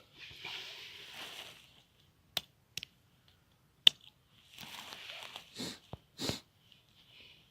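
Sticks being handled and worked while a stick trap is set up: rustling and scraping in two stretches, with three sharp clicks in the middle, the last the loudest.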